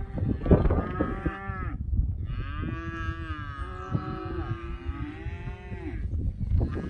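Cattle mooing: several long, drawn-out calls, some overlapping, with one long call lasting about four seconds in the middle, over a low rumble.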